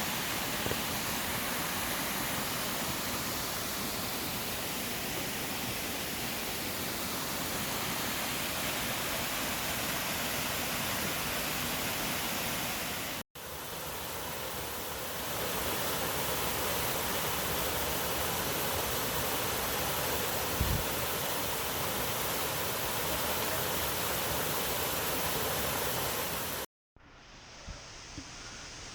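Waterfall: water pouring and rushing over rocks in a steady, full hiss. It drops out for an instant about halfway through, and near the end it cuts off suddenly to a much quieter woodland background.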